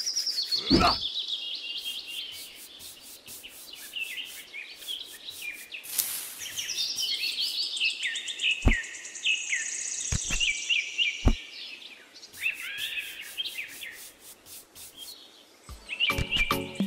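Birds chirping and singing in many short, quick calls, with a few sharp taps about nine to eleven seconds in.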